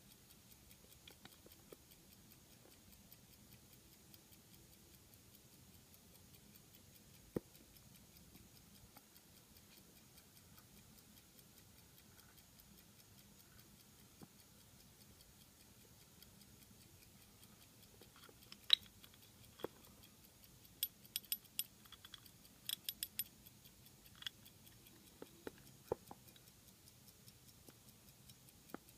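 Charles Huguenin & Sons gold-filled chronograph pocket watch ticking faintly in a rapid, even rhythm. Sharper, louder clicks and taps come in a cluster in the second half.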